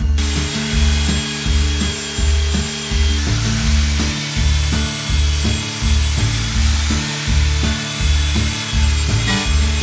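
Electric drill boring a bolt hole through a timber boat frame and its plywood gusset: a steady high whine over the rasp of the bit cutting wood. Background music with a steady bass beat plays throughout.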